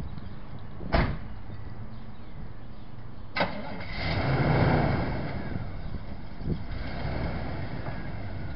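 Two sharp knocks about two and a half seconds apart, then a vehicle engine swelling up for a couple of seconds and settling back.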